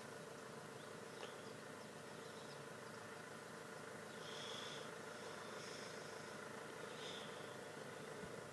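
Quiet outdoor ambience: a faint steady hum with a few faint, short high-pitched chirps from about four seconds in.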